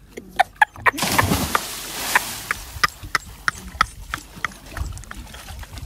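A man jumping off a jetty into the sea: a loud splash about a second in that fades over a second or two, then water sloshing around him as he swims. A run of sharp clicks and knocks sounds a few times a second throughout.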